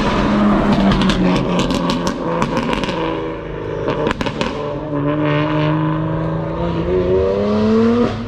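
Car engine revving through its exhaust, with a rapid run of sharp crackles and pops in the first few seconds and more around four seconds in. The engine note drops, holds steady, then rises again near the end.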